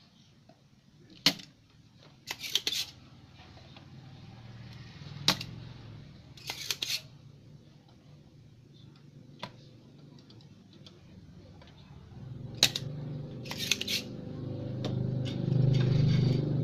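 Spring-loaded desoldering pump snapping as its plunger is released, four sharp snaps with brief rattling bursts between them, while a soldering iron melts the joints of a shorted zener diode on a TV circuit board. A low hum rises near the end.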